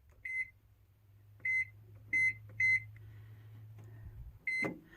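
Microwave oven's keypad beeping as buttons are pressed to set the clock: five short high beeps at uneven intervals, over a low hum that stops near the end.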